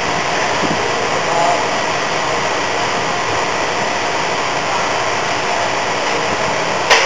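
Steady machinery and ventilation noise with faint high steady tones. Near the end comes one sharp snap, in keeping with a minor electrical discharge still breaking out inside the freshly charged acrylic block.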